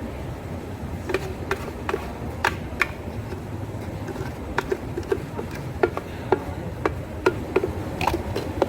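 Cafe counter work sounds: an irregular run of light knocks and clicks, about two a second, over a steady low hum.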